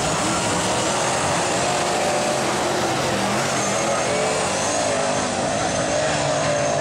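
Engines of several winged sprint cars running around a dirt speedway oval, their pitch wavering up and down as the drivers work the throttle.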